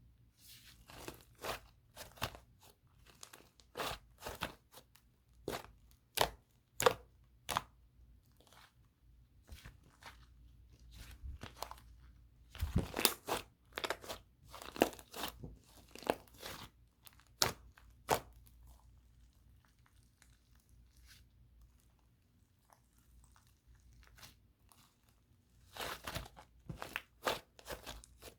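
Clay slime being squeezed and stretched by hand, giving clusters of soft crackling, crunchy pops, a 'sharr' sound that is unusual for clay slime. The crackling thins out for a few seconds past the middle, then picks up again near the end.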